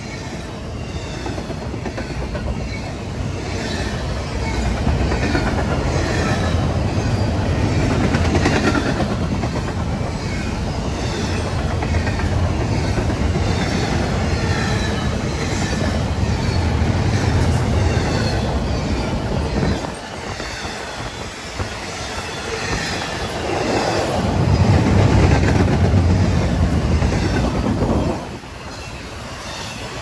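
Double-stack intermodal freight cars rolling past at close range: a steady rumble of steel wheels on rail, with recurring clicks and light squeals from the wheels. The rumble dips briefly about two-thirds of the way through.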